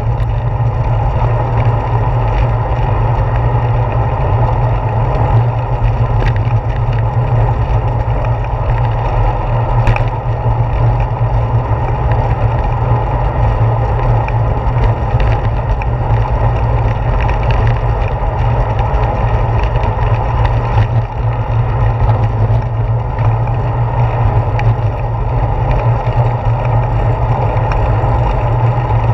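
Bicycle riding along a paved path, heard from a handlebar-mounted GoPro: a steady, loud low rumble of wind on the microphone and tyres on the pavement, with occasional light clicks and knocks from bumps in the path.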